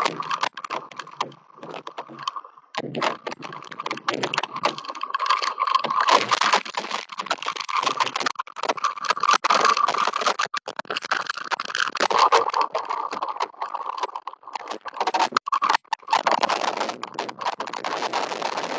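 Hail falling, heard through an outdoor security camera's microphone: a dense, uneven clatter of small hailstones striking hard surfaces, with a brief lull about two seconds in.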